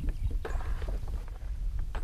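Wind rumbling on the microphone, with a brief hiss about half a second in and a few faint knocks.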